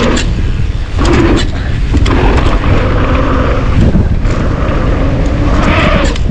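Wind buffeting the microphone and knobby tyres rumbling over a dirt trail as a downhill mountain bike rides fast, with sharp knocks and rattles from the bike over bumps and jumps.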